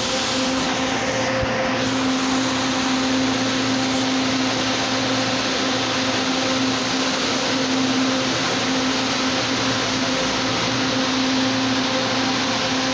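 Steady mechanical drone with a constant low hum from an LRT-2 light-rail train standing at the platform with its doors open.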